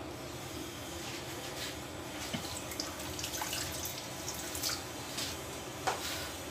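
Water running from a tap, with scattered small splashes and clicks, the sharpest near the end.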